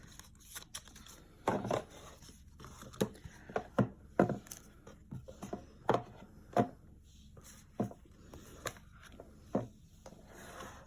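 Album pieces such as a CD and its case being handled and set down on a table: a string of irregular sharp taps and knocks of plastic and paper, with light rustling between them.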